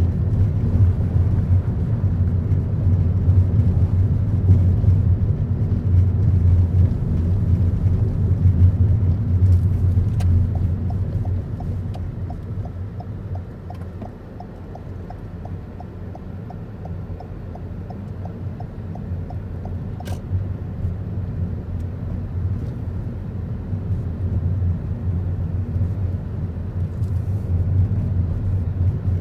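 Car cabin rumble, the engine and tyre noise of a car driving through streets, heard from inside. It drops off about halfway through as the car slows, then builds again as it picks up speed. A faint, quick, regular ticking runs through the quieter middle stretch.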